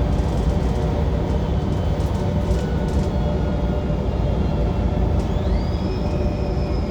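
City bus engine and drivetrain heard from inside the cabin while under way: a steady, loud rumbling with a low engine hum. About five seconds in, a high whine rises and then holds.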